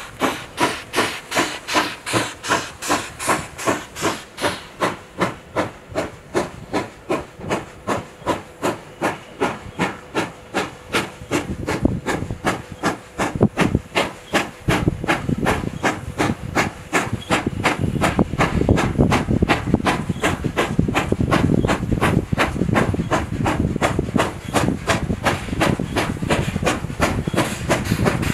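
Steam locomotive working hard as it pulls away with a train of empty coal wagons: sharp exhaust chuffs in an even rhythm of about two to three beats a second. From about halfway, gusts of wind rumble on the microphone under the beats.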